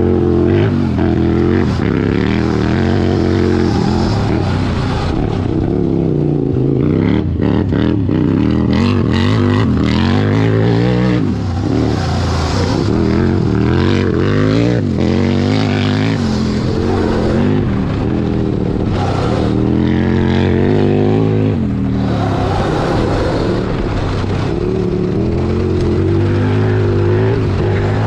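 A Sur Ron electric dirt bike and a 100 HP Power Wheels 4x4 being driven hard on a dirt track: motors revving up and down, their pitch rising and falling over and over as they accelerate and brake through corners.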